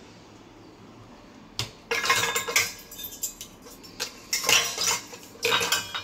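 Stainless steel pots and bowls clanking against each other and the wire rack of a loaded dishwasher as they are lifted and moved. There is a single knock about a second and a half in, then three bursts of clatter.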